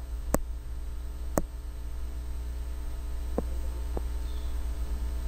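Steady low electrical hum in the recording, with a few short clicks: two sharper ones in the first second and a half and two softer ones about a second and a half later.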